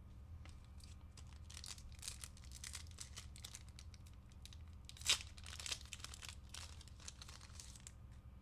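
Trading card pack wrapper being torn open and crinkled in the hands: a crackling run of small tears and crinkles, with one sharper rip about five seconds in.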